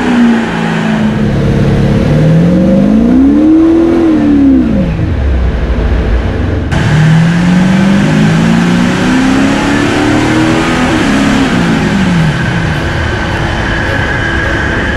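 Audi SQ5's 3.0-litre twin-turbo V6 diesel making two pulls on a chassis dyno in stock tune. Each time the engine pitch climbs steadily up the rev range and then falls back as it winds down, over a steady high whine.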